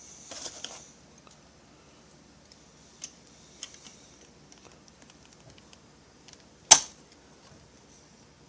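Small metal parts and pliers clicking and rattling while an E-clip is fitted on a chainsaw engine, with a short rustle at the start and one sharp, loud click about two-thirds of the way through.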